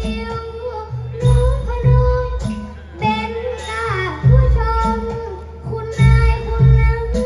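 A child singing a Thai likay song through a headset microphone over amplified stage music with a strong, recurring bass line.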